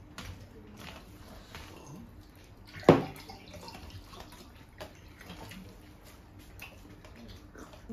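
Hands mixing rice into curry gravy on steel plates, with eating sounds, and one sharp knock about three seconds in.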